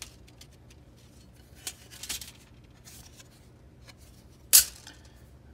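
Small embossed metal miniature license plates being handled, with light ticks and a soft swish. About four and a half seconds in there is one short, sharp metallic clatter as a plate is laid onto a stack of others.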